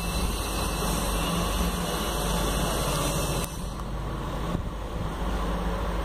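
Steady background noise with a low rumble, resembling distant road traffic; its upper hiss drops away about three and a half seconds in.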